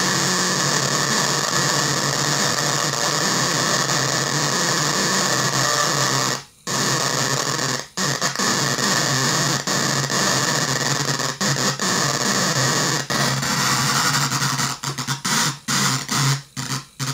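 A 20-watt loudspeaker switched on and off from a 9-volt battery by the chattering contacts of an ordinary electromagnetic relay whose coil is fed music from a phone: a loud, dense, harsh noise, a cacophony. It cuts out briefly about six and a half seconds in and again near eight seconds, then breaks into choppy bursts with short gaps near the end.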